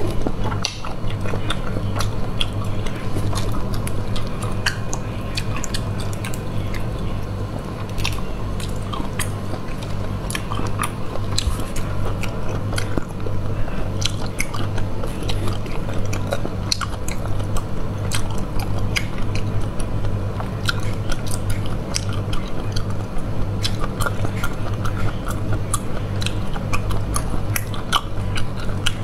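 Close-miked eating of sea snails in sauce: wet sucking, smacking and chewing, with many short sharp clicks throughout, over a steady low hum.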